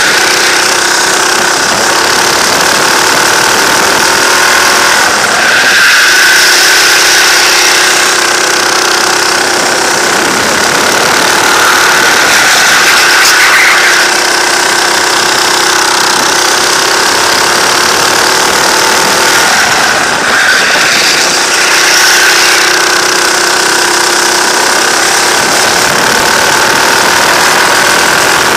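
Go-kart engine running at race speed, heard from the driver's seat of the kart. The engine note drops and picks up again several times as the throttle changes through the corners.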